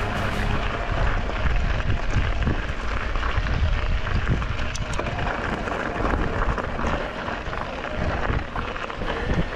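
Wind buffeting the microphone over the crunch and rattle of mountain-bike tyres rolling on a loose gravel track.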